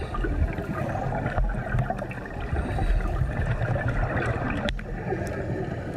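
Underwater dive sound: a steady gurgling, hissing wash with a low rumble, broken by a couple of sharp knocks, the clearest near the end, as hàu hương oysters are struck loose from the rock.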